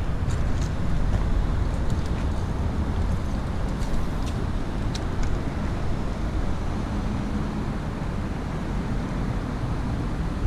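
Steady low rumble of road traffic, with a few faint ticks over it.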